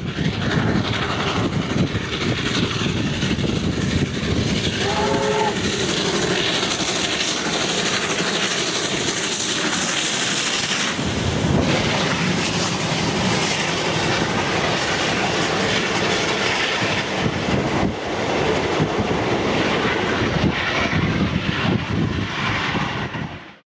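Victorian Railways R class 4-6-4 steam locomotive R711 passing at full speed, with a brief whistle blast about five seconds in, followed by its carriages rattling by with a clickety-clack over the rail joints. The sound cuts off abruptly near the end.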